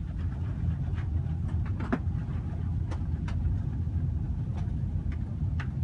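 Airbus A380 cabin noise on final approach, heard from inside the cabin: a steady low rumble of engines and airflow, with a few faint clicks.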